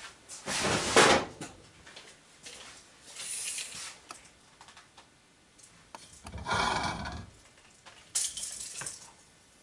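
Rustling and clattering of tools and gear being handled at a workbench, in several separate spells, the loudest about a second in.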